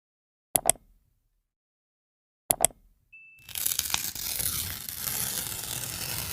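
Editing sound effects: two quick double clicks, a short high beep, then a steady hissing, crackling noise that starts about three and a half seconds in.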